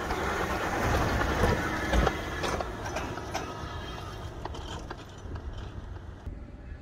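Land Rover Defender towing an off-road caravan across loose sand: engine and tyres churning the sand, with scattered knocks and rattles. Loudest a second or two in as it passes close, then fading as it drives away.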